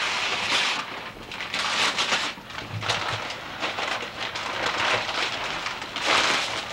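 Paper rustling and crinkling in several crackly bursts, the sound of Christmas gift wrapping being handled.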